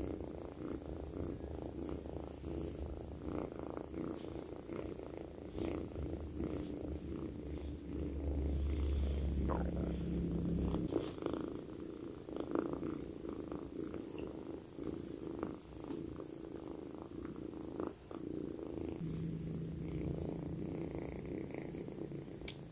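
Young ginger tabby kitten purring loudly and steadily, swelling louder for a few seconds about eight seconds in, with small rustles of fur and fleece blanket under a stroking hand.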